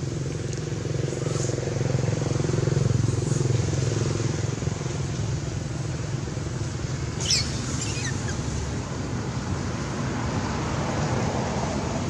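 A motor vehicle's engine drones steadily in the background, swelling a couple of seconds in and then easing off. About seven seconds in comes a brief high squeal that falls in pitch.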